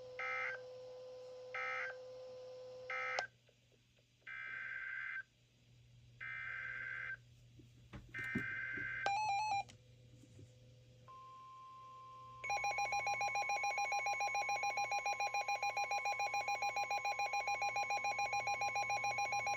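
Emergency Alert System data tones: three short buzzy bursts of end-of-message code, then three longer SAME header bursts for the next alert. About 11 seconds in, the steady 1050 Hz NOAA Weather Radio warning tone starts, and a second and a half later the loud, pulsing EAS two-tone attention signal joins it.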